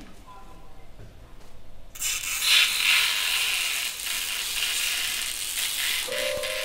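Experimental ensemble music for instruments, objects and loudspeakers: after a quiet start, a loud, dense hissing noise sets in suddenly about two seconds in and holds. Near the end a steady held tone enters beneath it.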